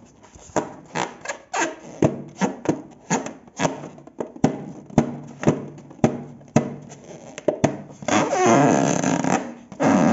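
Glossy slime being squeezed and pressed by hand, giving a string of sharp wet pops and squelches about two a second, then a longer, sustained squelch about eight seconds in.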